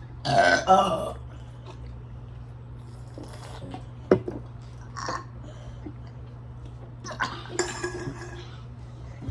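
Brief bits of voice and small mouth sounds, the loudest just after the start, with a sharp click about four seconds in, over a steady low hum.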